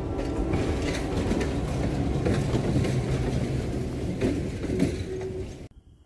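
Passenger train coaches and a trailing EMD F7 diesel locomotive rolling past at close range, with wheels clicking and rumbling over the rail joints. The sound cuts off suddenly near the end.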